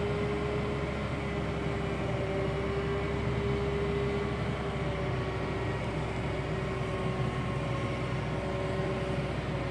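Volvo L60F wheel loader's diesel engine running steadily under load, heard from the cab, with a steady whine held over the rumble that dips slightly in pitch about halfway through.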